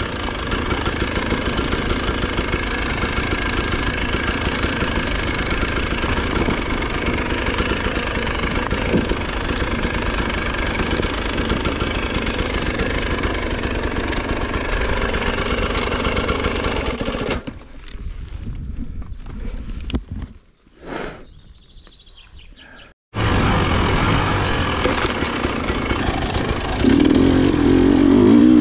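Dirt bike engine running under way on a dirt track, heard from an on-board camera. About 17 seconds in the sound drops away to near quiet for several seconds, then the engine comes back loud, revving hardest near the end.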